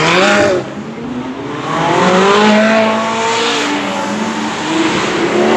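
Sports cars accelerating past one after another, their engines revving with a rising pitch; the loudest pull comes about two seconds in.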